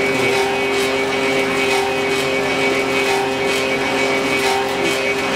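Clog-copying lathe running, carving a wooden shoe: a steady motor hum with a hiss that swells regularly about twice a second.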